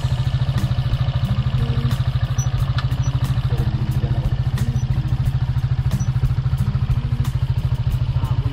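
A small engine running steadily at an even speed, with a fast regular pulse.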